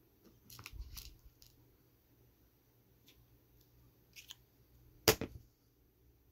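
Small plastic jelly cups being handled and set down on a bamboo cutting board: a cluster of light clicks and taps about a second in, a few faint ticks later, and one sharp knock just after five seconds.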